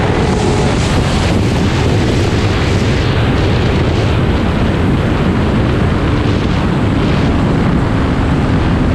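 Heavy wind rush and buffeting on the microphone at high speed on a stock 2005 Suzuki GSX-R 600, with the bike's inline-four engine faintly running underneath.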